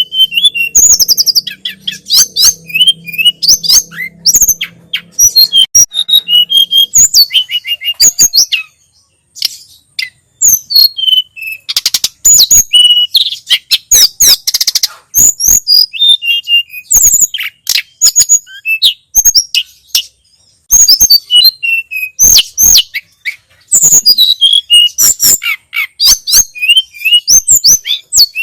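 Tledekan gunung (sulingan gunung) singing: rapid runs of high, sweeping chirps and whistled notes, with short pauses between phrases.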